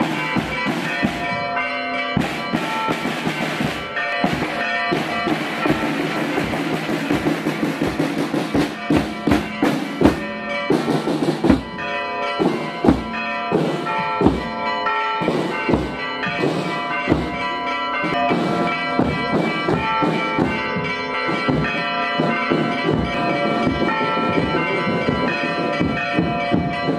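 Church bells ringing a festive peal: several bells struck again and again in a quick, irregular clangour, their tones hanging on between strikes.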